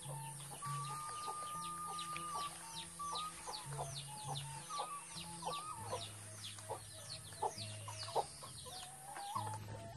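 Chickens calling around the houses, a steady run of high, falling chirps two or three a second. Soft background music with low held notes plays underneath.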